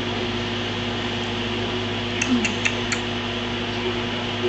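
Steady hum and hiss of a fan or air conditioner in the room, with four light clicks in quick succession about two seconds in.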